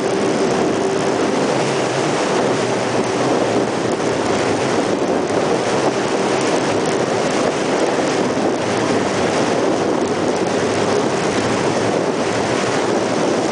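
Jet boat running steadily at speed, its engine and water jet making an even, unbroken noise mixed with the rush of water.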